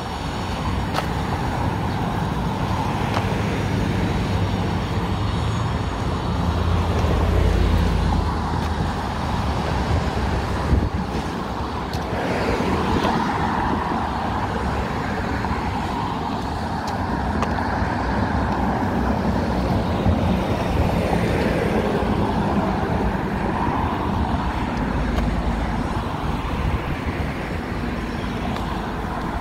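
Road traffic on a multi-lane street: cars going by close to the curb in a steady run of tyre and engine noise, swelling as vehicles pass, loudest about seven seconds in.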